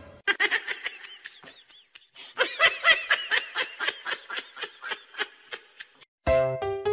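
A person laughing in quick, repeated giggling bursts, about three to four a second, quieter at first and louder from about two seconds in. Piano music starts just before the end.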